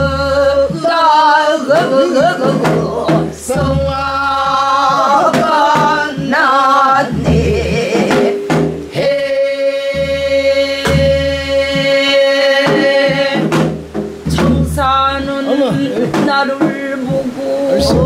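Two women singing a Korean folk song in the pansori style, with long held, wavering notes, over sparse sharp stick strikes on a janggu drum.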